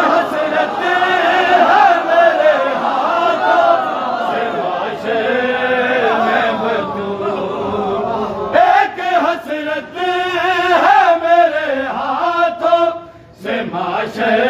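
A group of men chanting a Shia noha together, many voices at once in a sung, rhythmic recitation. The voices dip briefly a second or so before the end, then resume.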